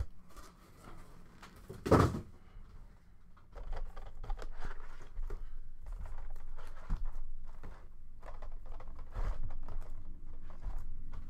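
Cardboard trading-card hobby boxes being handled and set down on a table. There is one sharp knock about two seconds in, then a run of light taps, scrapes and rustling.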